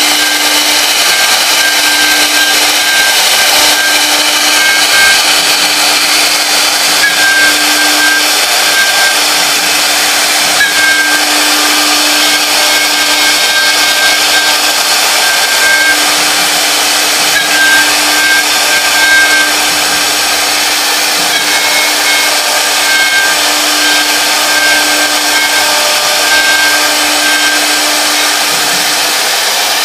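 A three-spindle CNC wood router carving a decorative pattern into a wooden board: a steady, loud spindle-and-cutter noise, with high tones that cut out and return every second or two as the head moves.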